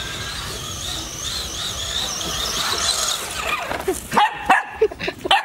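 RC car's motor whining high, its pitch wavering up and down as the throttle changes. Near the end, a dog barks several times in quick succession.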